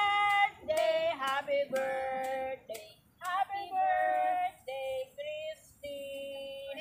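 A high-pitched singing voice, a woman's or a child's, singing a song in clear held notes with short breaks between phrases.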